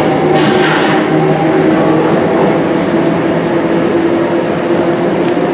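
London Underground track recording train of 1960 Stock motor cars and a 1973 Stock trailer running away into the tunnel: a loud, steady rumble of wheels on rails with a whine of several held tones. A brief hiss comes about half a second in.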